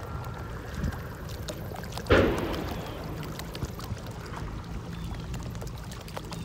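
Lake water splashing and lapping against the hull of a small moving boat over a steady low rumble, with one louder splash about two seconds in.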